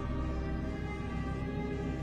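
Background music: sustained tones held over a deep low bass.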